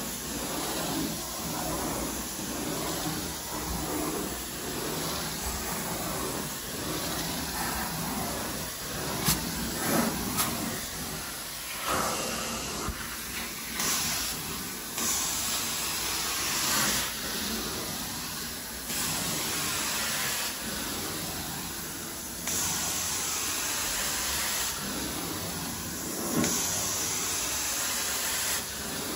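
Carpet extraction wand drawing a steady suction hiss as it is pulled across carpet, with a sharper spray hiss that switches on and off stroke by stroke. A couple of sharp knocks come about nine to ten seconds in.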